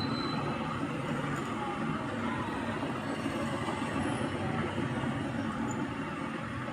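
Steady, even background noise with no distinct strokes or changes.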